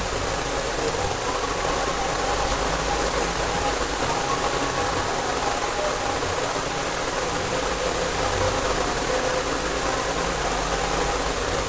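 Steady rushing background noise with a faint steady hum, unchanging throughout.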